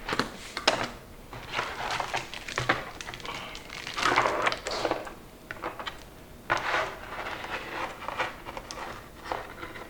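Crinkling, rustling and small clicks and knocks of computer parts and their packaging being handled, in irregular bursts.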